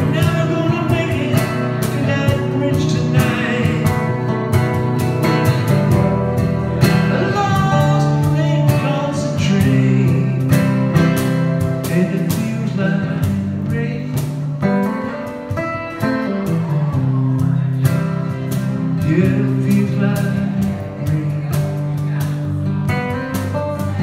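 A man singing a song while strumming and picking an acoustic guitar in a steady rhythm.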